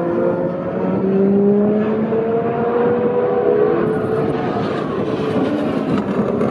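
Super Formula race cars' 2.0-litre turbocharged four-cylinder engines running on track, several at once, their overlapping engine notes slowly rising and falling as the cars go by.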